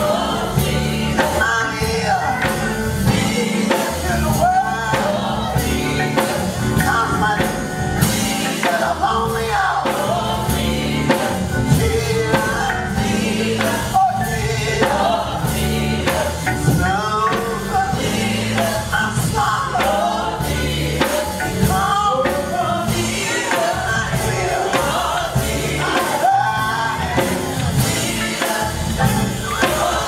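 A gospel song playing: a choir singing with instrumental backing and a steady beat.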